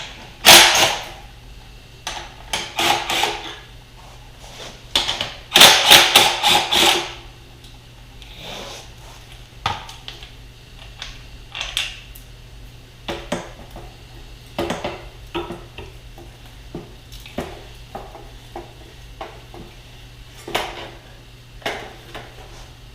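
Hand tools and metal motorcycle parts clinking and clattering in short bursts, with a dense run of clatter about six seconds in, then lighter scattered clinks.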